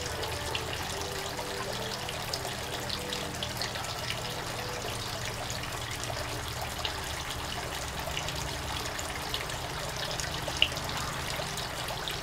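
Small stone garden bubbler fountain, its water welling over the top and trickling and dripping down steadily. A single brief sharp tick stands out about ten seconds in.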